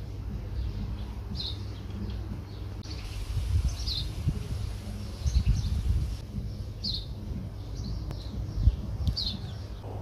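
Small birds chirping in short, separate calls every second or two, over a low rumble of handling noise on the microphone with a few bumps.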